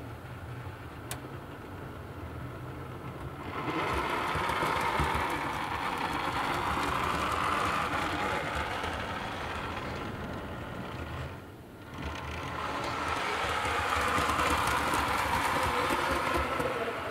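Model train running over new Peco points and double slips, its wheels and motor making a steady running clatter with fine clicks. The sound swells about three and a half seconds in, dips briefly near the twelfth second, then swells again before dropping away just before the end.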